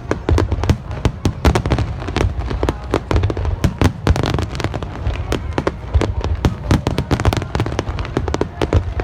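Fireworks exploding in rapid, overlapping bangs, many cracks a second over a continuous deep booming rumble.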